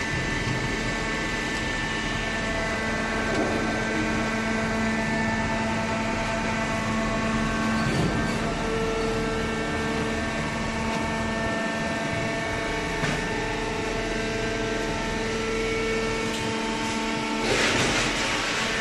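Hydraulic baling machine running: a steady motor hum with a whine whose tones come and go, then a louder rushing noise near the end.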